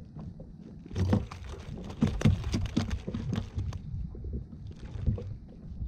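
A quick, irregular run of knocks and taps on a fishing kayak, from about a second in until near the end, as a freshly caught fish and the tackle are handled.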